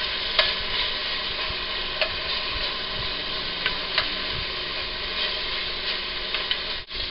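Marinated chicken thigh pieces sizzling steadily in hot oil in an enamelled pot as they begin to brown, with a wooden spoon scraping and tapping against the pot a few times as the pieces are spread out.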